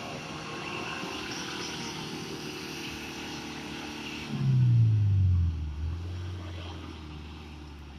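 Mitsubishi Pajero engine running as the SUV drives over loose sand. Its sound becomes much louder about halfway through as it comes close, and its pitch drops over about a second before it eases off.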